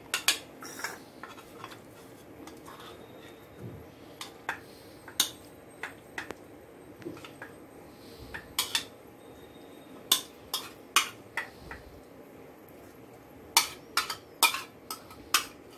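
A spoon clinking and scraping as chicken salad is spooned from a paper plate into a small bowl: scattered sharp clicks, bunched about ten seconds in and again near the end.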